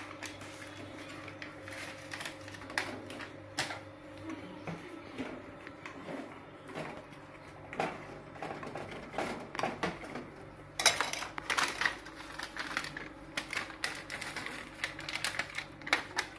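Kitchen handling sounds: a spoon clinking and scraping in a ceramic bowl among chocolate pieces, with the crackle of foil chocolate wrappers, as scattered sharp clicks and a dense run of crackling about eleven seconds in. A faint steady hum sits underneath.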